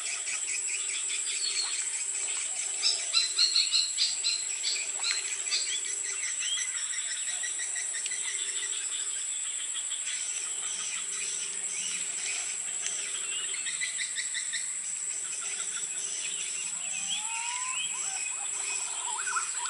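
Tropical forest ambience: a steady high-pitched insect drone with rapid repeated chirping calls, a louder cluster of chirps about three seconds in, and a low note sounding on and off. Near the end come a few short rising bird whistles.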